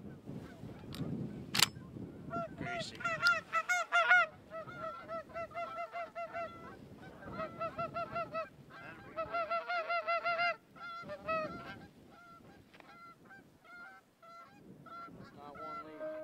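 A flock of geese honking in rapid, overlapping series, loudest in the first half and thinning to scattered honks later. One sharp crack sounds about a second and a half in.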